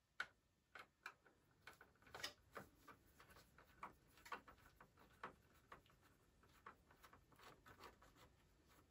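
Faint, irregular clicks and ticks of a small screwdriver backing sheet metal screws out of the iMac G3's metal shield.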